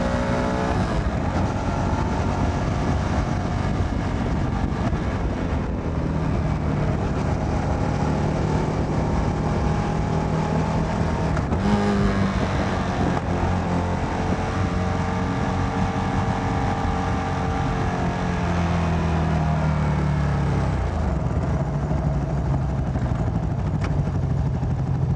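A motorcycle engine running under way, heard from the rider's own bike, with wind rushing over the microphone. The engine pitch drops about three quarters of the way through as the bike slows, then picks up again near the end.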